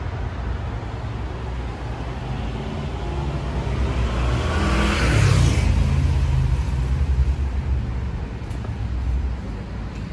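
City street traffic: a steady low rumble, with a motor vehicle passing close by, its engine and tyre noise swelling to a peak about halfway through and then fading.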